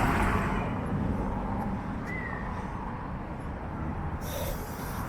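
Street ambience: a passing car's noise fading away in the first second, then a steady low traffic rumble, with a brief high chirp about two seconds in and a short hiss of another vehicle near the end.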